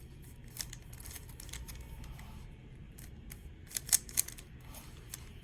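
Plastic 3x3 Rubik's cube being turned by hand: a run of short clicks and clacks as its layers rotate, the sharpest few about four seconds in.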